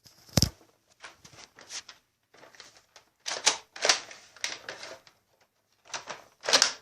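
Plastic toy gun being worked to fire, giving a run of separate clicks and snaps, the sharpest about half a second in. The gun seems to be jammed.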